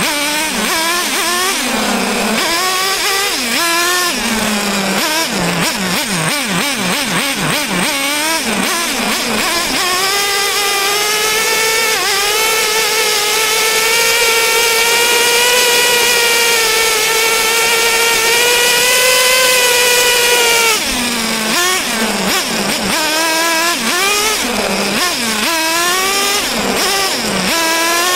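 Small, high-revving motor of a radio-controlled car, its pitch surging up and down with the throttle. About twelve seconds in it holds a steady high whine, creeping slightly higher for about eight seconds, then drops back to short revving surges.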